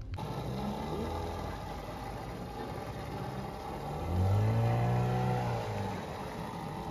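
Small outboard motor on an inflatable boat running as the boat passes by on the river. The engine's pitch rises and then falls, and it is loudest from about four seconds in until past five seconds.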